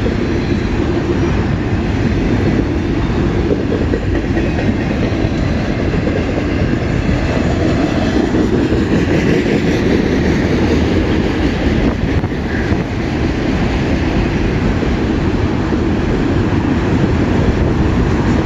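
Long CN freight train rolling past, its wheels rumbling and clacking steadily on the rails.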